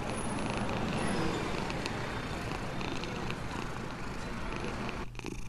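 Black cat purring steadily close to the microphone, with a few small clicks of licking as it grooms.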